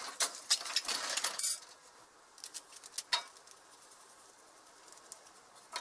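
Loose metal motorcycle parts clinking and rattling as they are handled during rear wheel refitting: a dense clatter for about a second and a half, then a few scattered clicks, then quiet.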